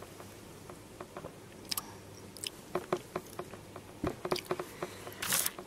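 Quiet mouth sounds as a plastic water bottle is sipped from, with scattered small clicks and a short rustle near the end.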